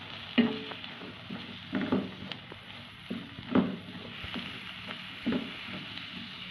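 A wooden spatula stirring a sizzling onion and tomato masala with fresh mint and coriander leaves in a stainless steel kadai. It scrapes through the mix about every second and a half over a steady sizzle.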